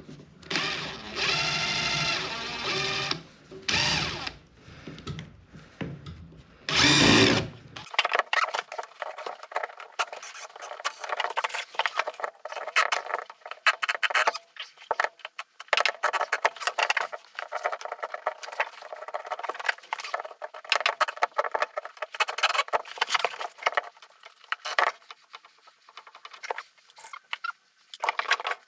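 A power drill runs for about three seconds, then in two short bursts. After that come many rapid rattling clicks.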